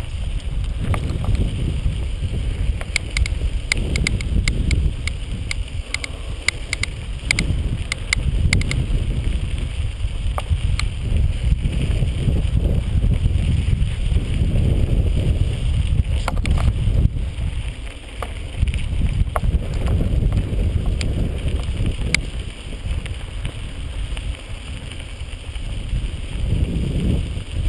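Wind buffeting a GoPro microphone over the rumble of a mountain bike rolling along a dirt trail, surging and easing with speed. Scattered sharp clicks from the bike over rough ground, most of them in the first third.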